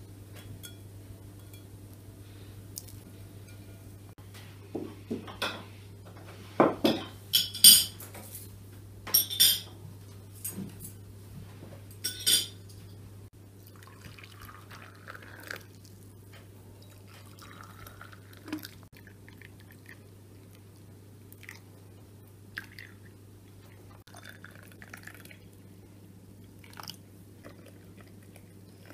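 Glass tea glasses clinking against each other and a metal tray, with a run of sharp clinks in the first half. Then tea is poured from a kettle into the small pear-shaped glasses, with a trickling sound and light clinks.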